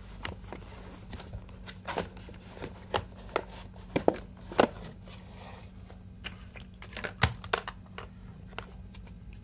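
Cardboard box and plastic packaging being handled: irregular rustling, crinkling and small taps, with a few sharper clicks scattered through, over a faint steady low hum.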